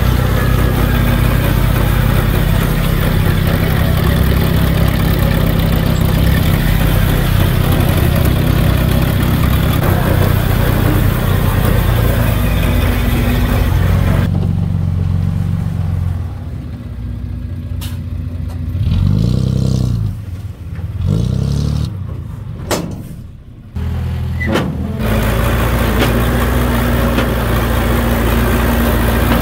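Diesel engines of heavy earthmoving machinery running steadily. About halfway through the sound drops back, an engine revs up and down twice and there are a few sharp clicks, then the steady running returns.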